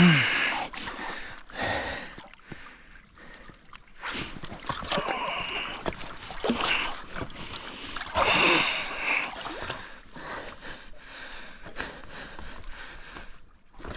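Shallow icy creek water splashing and sloshing in irregular bouts, with chunks of broken ice knocking and clinking, as gloved hands work in the water setting a beaver trap under the surface.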